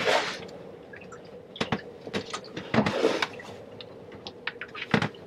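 Diesel poured from a plastic no-spill jug into a new spin-on fuel filter, with irregular dripping and trickling and sharp clicks of the plastic jug and its valve.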